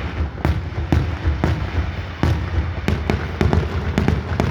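Fireworks exploding in rapid succession: a dense, irregular string of sharp bangs, several a second, over a continuous low rumble.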